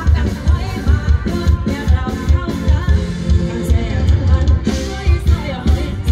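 A woman singing live into a microphone with a band, over a steady kick-drum beat, amplified through stage speakers.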